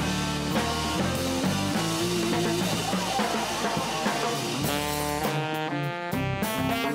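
Instrumental band playing live in a dense rock passage: drum kit with cymbals, electric guitar and bass guitar. About two-thirds of the way through, a saxophone melody of held notes comes forward over the band.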